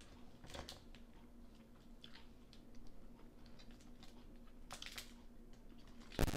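Faint scattered clicks and small cracks of steamed blue crab shell being picked apart by hand, over a low steady hum. Near the end a sudden loud burst of static-like noise cuts in.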